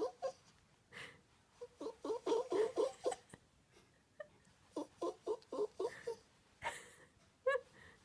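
Cocker spaniel puppy making whimpering baby noises: two runs of short, quick whines, about five a second, then one rising squeak near the end.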